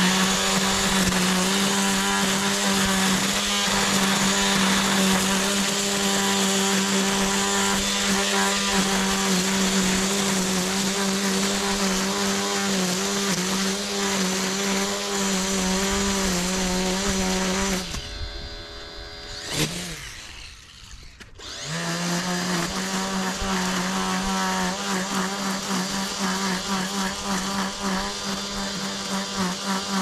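Makita cordless string trimmer spinning at a steady high whine while edging grass along a concrete path edge. The motor cuts out a little past halfway, blips once, and spins back up a few seconds later.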